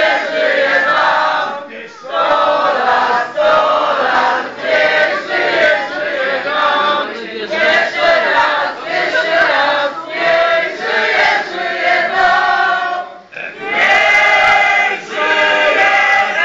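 A group of men and women singing a birthday song together, loud and continuous, with brief breaks about two seconds in and about thirteen seconds in.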